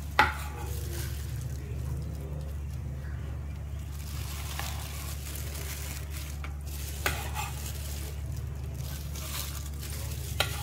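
A few sharp knocks of a kitchen knife against a wooden cutting board and a plastic food box, the loudest just after the start, over a steady low hum.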